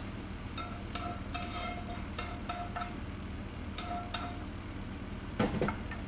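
A spoon scraping sauce out of a tilted frying pan into a bowl: a run of short ringing clinks and scrapes, then a louder clunk about five and a half seconds in as the pan is set back down on the stove. A steady low hum lies underneath.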